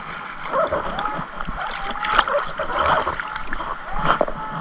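Lagoon water sloshing and splashing right at the microphone as a person wades and works in shallow water, with irregular small splashes throughout.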